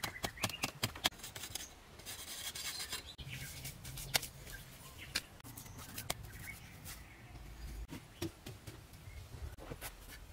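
Hands and tools scraping and rubbing on earth and wet clay, as clay is pressed by hand into a metal brick mould, with scattered sharp clicks and knocks, several of them in the first second.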